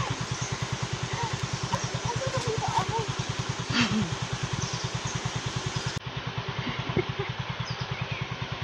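A small engine idling out of sight, an even low throb of about ten beats a second, over the steady rush of river rapids.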